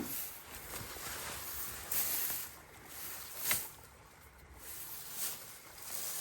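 Rustling and brushing in wetland vegetation: a few short scuffs about two, three and a half and five seconds in, the sharpest near three and a half seconds.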